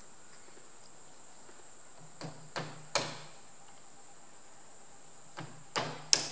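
A hammer tapping a steel pick to dig a heat-hardened O-ring out of a Perkins tractor oil pump housing: three quick taps about two seconds in, and three more near the end.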